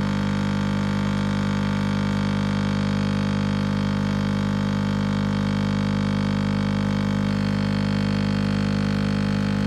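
Kotlie 4-in-1 capsule coffee machine's pump running with a steady electric buzzing hum while it dispenses coffee from a capsule.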